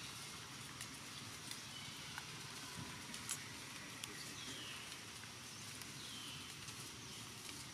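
Quiet forest ambience: a steady high hiss with three short falling chirps and scattered faint clicks and rustles.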